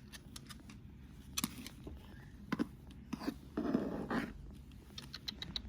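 Scattered clicks and taps from a blue-and-gold macaw playing with its toys, with a short rasping scrape a little over three and a half seconds in and a quick run of small clicks near the end.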